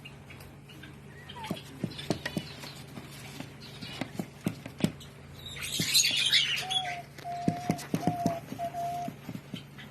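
Alexandrine parakeet chicks: scattered soft clicks and taps, a short raspy squawk about six seconds in, then four short whistled notes at one even pitch, over a steady low hum.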